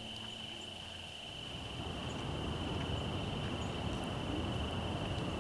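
Crickets trilling steadily in one unbroken high tone. A low rushing noise comes up about a second and a half in and stays under it.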